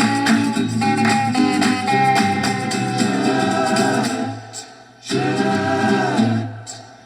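Music: an instrumental passage gives way to a group of voices singing held harmonies in short phrases, which break off briefly twice.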